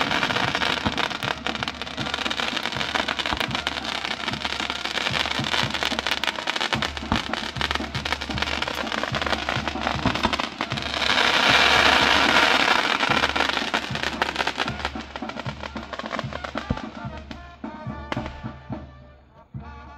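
Castillo fireworks hissing and crackling without a break, with many small sharp pops, swelling louder about halfway through and dying away near the end as music comes through underneath.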